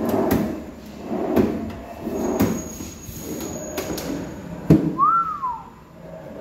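A cabinet drawer on metal side slides pulled open and pushed shut several times, each slide ending in a click or knock, with the sharpest knock a little under five seconds in. Just after it comes a short whistle-like tone that rises then falls.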